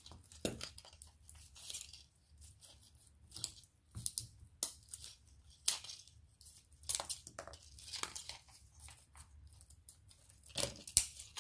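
Hand-handling of small craft decorations: irregular short rustles, crinkles and light clicks with quiet gaps between them.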